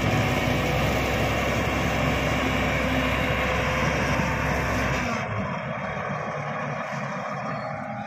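Shantui SD16 crawler bulldozer's diesel engine running steadily under load as it works through brush. About five seconds in, the sound changes abruptly to a thinner, quieter noise with the deep rumble gone.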